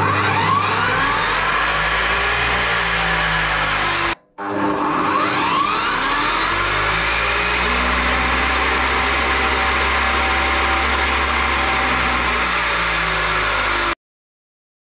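Metabo CS 23-355 metal cut-off saw's motor starting through its soft starter, spinning up with a rising whine over about a second, then running steadily at full speed with no load. About four seconds in the sound breaks off briefly, then the motor spins up again and runs on until it cuts off suddenly near the end.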